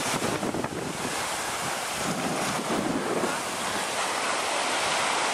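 Sea surf washing onto a beach in a steady hiss, with wind buffeting the microphone.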